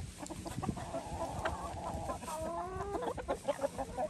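Backyard hens clucking and calling as they feed on a flounder carcass, with a run of calls from about a second in that gets busier in the second half.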